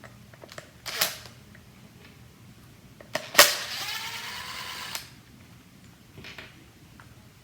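Light clicks and knocks of hand-handling a plastic sander housing and tool, then a sharp knock about three and a half seconds in followed by a cordless screwdriver's motor whirring for about a second and a half, its pitch rising slightly, as it backs out a Torx T20 screw.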